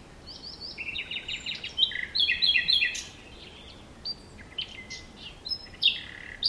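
Several songbirds chirping and singing in a morning birdsong ambience: quick runs of short, high chirps, busiest in the first few seconds, thinning out in the middle, then picking up again near the end.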